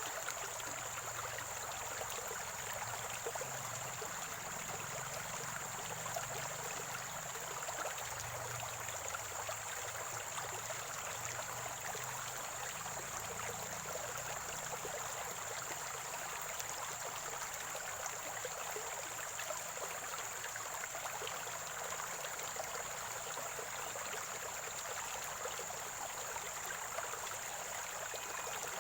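Spring-fed stream water gurgling and trickling in a steady, unbroken flow, with a thin steady high-pitched tone above it.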